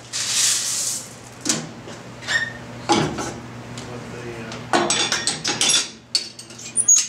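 Clattering and knocking of a pearl-polishing tumbler's drum compartments and plastic bowls being handled, with a dense rushing clatter in the first second. A steady low hum runs underneath.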